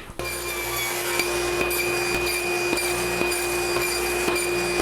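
Table saw running at a steady, unchanging pitch, with light irregular ticks over it as small pieces are crosscut on the sled.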